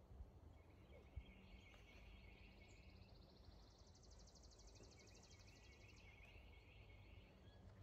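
Faint outdoor birdsong: scattered chirps, and a fast, even trill from about two and a half to six seconds in, over a low rumble.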